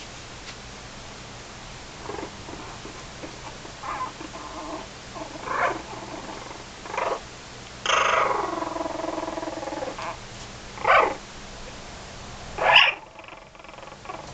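Newborn puppies squeaking and whining: a string of short high cries, with one longer whine about eight seconds in that slides down in pitch.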